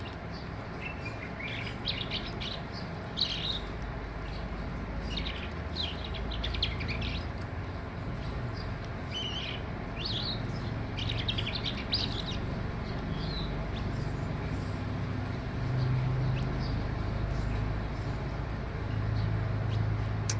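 Skylark singing in short bursts of quick, chirping notes, thick in the first twelve seconds and sparser after. A steady low rumble runs underneath and grows stronger near the end.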